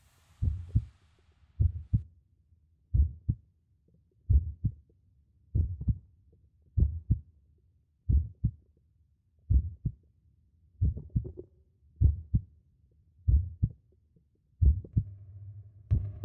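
Slow heartbeat, a double lub-dub thump about every 1.3 seconds. A low steady hum comes in near the end.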